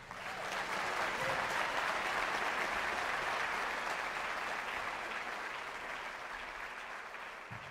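Audience applauding steadily, slowly fading over several seconds.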